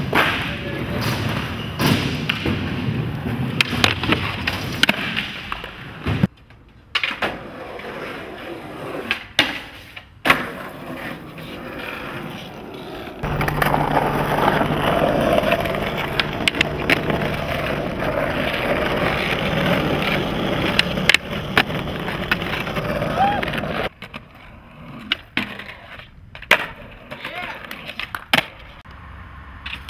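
Skateboards rolling and clacking: wheels running over wooden ramps and concrete, with sharp tail pops and board slaps on landings. The sound changes abruptly several times between clips.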